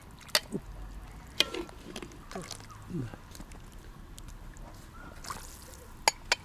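A metal fork clinks sharply against a plate and the rim of a cast-iron cauldron a few times as chunks of boiled meat are lifted out of the broth, with broth dripping and splashing back into the pot.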